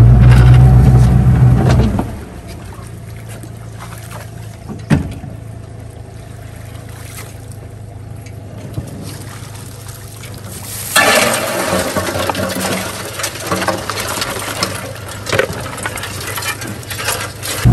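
Boat outboard motor running loud, then dropping to a steady low idle about two seconds in, with a single knock a few seconds later. From about eleven seconds in, crawfish are emptied from a mesh trap onto a metal sorting table, a rattling, scrabbling clatter for several seconds over the idling motor. The motor comes up loud again at the very end.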